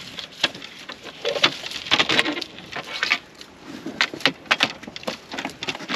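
Irregular knocks, clacks and scrapes of stones being shifted as an anchor is worked in among the rocks of a stone packing.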